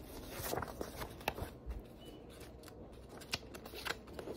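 Sheets of printer paper rustling and crinkling in irregular bursts as they are picked up, held and sorted by hand.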